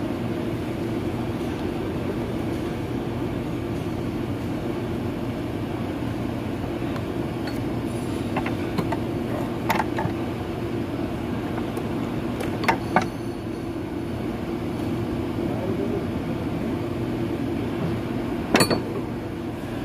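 Steady low machine hum, with a few sharp metallic clinks as the brake caliper piston and caliper body are handled. There is one clink about halfway, two in quick succession a few seconds later, and the loudest near the end.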